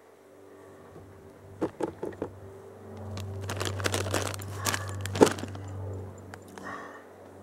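A plastic snack bag of pretzel rods being handled and crinkled: a few sharp crackles about two seconds in, then a longer run of crinkling with one loud crack about five seconds in. A low steady hum runs underneath from about three seconds on.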